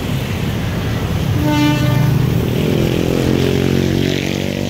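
Diesel locomotive engine running with a steady low hum, and a short horn toot about a second and a half in.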